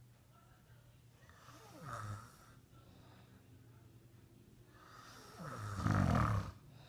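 A sleeping man snoring: a shorter snore about two seconds in, then a much louder, longer snore near the end.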